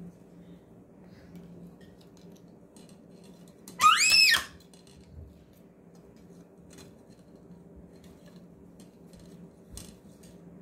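Plastic straws and a plastic spoon stirring and tapping in a plastic cup of chocolate drink, making faint scattered clicks over a steady low hum. A short high-pitched squeal rises and falls about four seconds in and is the loudest sound.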